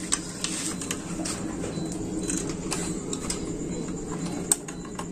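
Hand work on the fuel fittings of a stopped Yanmar diesel engine while its fuel line is refitted for bleeding: a couple of sharp metallic clicks, one just at the start and one about four and a half seconds in, over a steady low hum.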